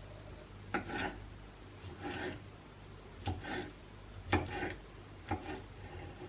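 Knife cutting on a wooden chopping board: five slow strokes about a second apart, each a sharp tap followed by a short scrape.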